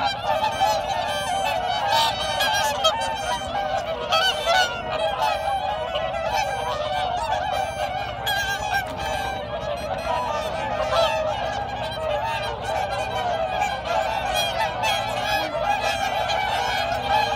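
A large flock of whooper swans calling, many honking calls overlapping without pause.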